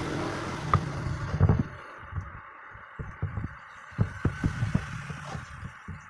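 Soft, irregular low thumps and knocks, several a second in places, over a faint steady hiss: handling noise while adhesive is squeezed from a tube by hand.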